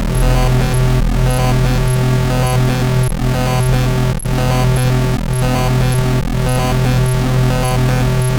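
Electronic music from a live sound performance: a steady low drone under layered sustained tones, with a short high blip repeating just under twice a second.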